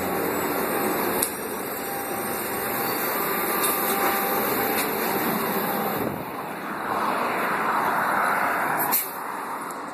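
Cabin noise of a 2001 New Flyer C40LF transit bus with a Doosan CNG engine, running and moving along the road. From about seven seconds in, a louder rushing hiss builds over it and cuts off sharply about two seconds later, after which everything is quieter.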